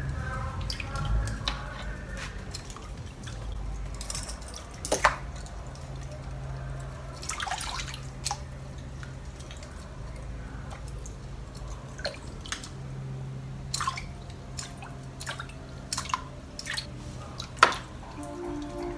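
Irregular small splashes and drips of water as a rat-shaped wake bait is pulled across the surface of a water-filled plastic tub, with a steady low hum underneath. The loudest splash comes near the end.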